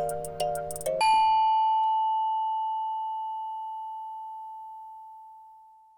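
Closing music: a few rhythmic notes with light ticking, then about a second in a final bell-like chime that rings on and slowly fades out.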